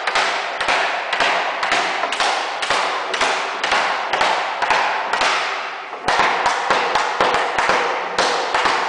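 Cooper hammering the steel hoops down on a wooden wine barrel, metal struck on metal in a steady rhythm of about two blows a second, each with a short ring, with a brief break a little past five seconds in.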